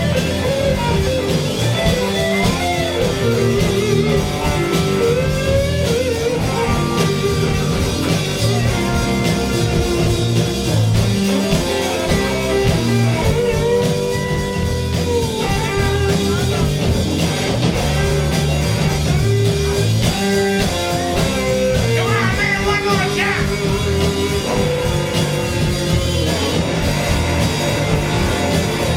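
Live rock band playing a blues-rock song, with guitar lines prominent over bass and drums.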